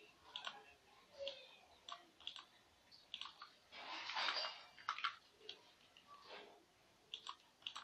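Scattered, irregular clicks of a computer mouse, with a short rustling hiss about four seconds in.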